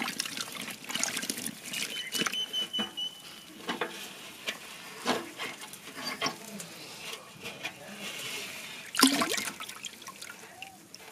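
Wet, string-wrapped firecrackers being stirred by hand in a basin of green liquid: irregular splashing and sloshing. A louder splash comes about nine seconds in as the cloth bag is lifted and water pours into the tub.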